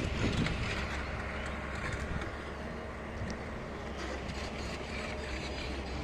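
Steady outdoor background noise with a low, even rumble and no distinct events.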